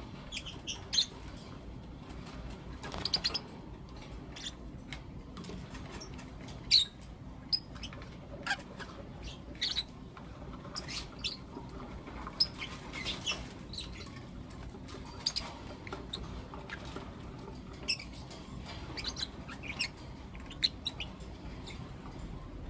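Lovebirds chirping: short, sharp, high chirps scattered irregularly, about one every second, over a steady low background noise.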